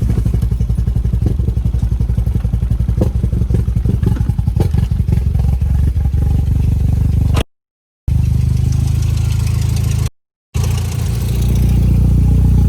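Volkswagen car engine idling through an exhaust with a newly fitted muffler, a steady pulsing idle, still a little loud. It is running to bleed air out of a freshly refilled cooling system. The sound cuts out briefly twice in the second half.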